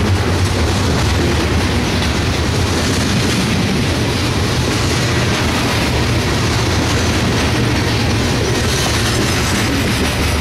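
Empty covered hopper cars of a freight train rolling past at close range: steel wheels running on the rails make a steady, loud noise that is heaviest in the low end.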